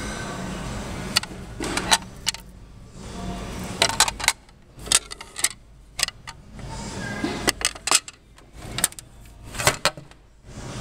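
A run of sharp, irregular clicks and clacks, starting about a second in, with the steady background noise dropping away in the gaps between them.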